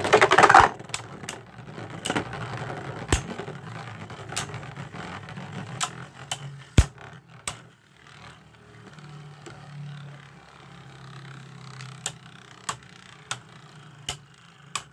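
Two Beyblade Burst tops, Spryzen Requiem and Revive Phoenix, spinning in a plastic Beyblade Burst stadium just after launch: a low whirring hum broken by about a dozen sharp clicks as the tops collide. A loud burst of noise comes right at the start.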